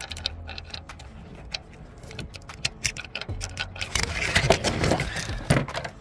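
Light clicks and taps of a gloved hand and a metal pick working among engine-bay parts, with a louder spell of rustling and scraping about four seconds in.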